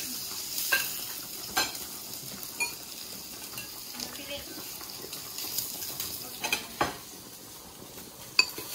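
Metal ladle and spoon clinking against a ceramic bowl as hot pot broth and vegetables are served, several sharp clinks spread out, over a steady hiss of the broth simmering.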